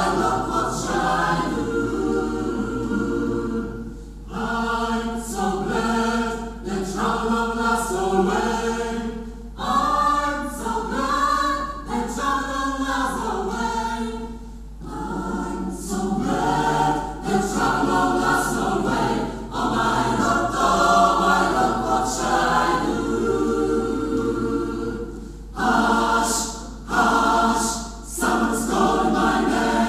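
Mixed choir of women's and men's voices singing unaccompanied, in phrases broken by short pauses for breath.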